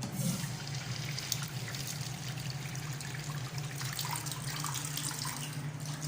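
Water running from a faucet into a sink, starting suddenly and stopping about six seconds later.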